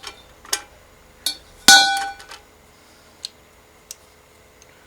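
Metal tools clinking and knocking against metal. A few light clicks lead up to one loud clank that rings for about half a second, a bit under two seconds in, followed by a couple of faint ticks.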